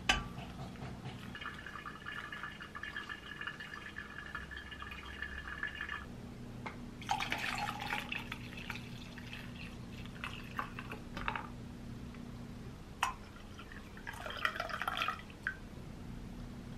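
Hand-drip coffee being made: a thin stream of hot water trickling from a gooseneck kettle into a ceramic pour-over dripper, then brewed coffee poured from a glass server over ice in a plastic cup, with a few clinks, and a shorter pour into a ceramic mug near the end.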